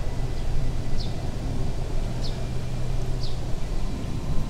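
A low, uneven rumble, with a bird repeating a short, high chirp that falls in pitch, about once a second.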